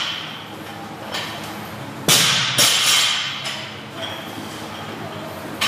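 Loaded barbell with bumper plates clanking during repeated lifts: two loud impacts about two seconds in, half a second apart, each with a brief metallic ring, and a smaller knock near the end.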